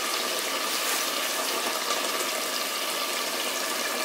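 Kabab gravy simmering in a clay handi pot on the heat: a steady hiss with faint scattered pops.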